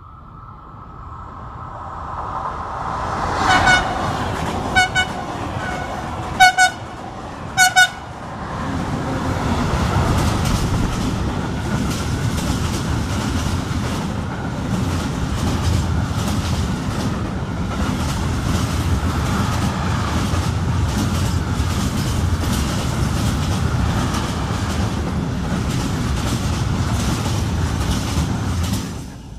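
A freight train approaches and sounds its horn in several short blasts. Then its long string of open freight wagons rumbles past close by, with the wheels clattering steadily.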